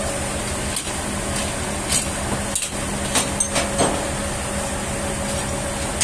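Sawmill machinery running with a steady hum. Several sharp knocks and clanks between about one and four seconds in, as the log is levered around on the bandsaw carriage with a cant hook.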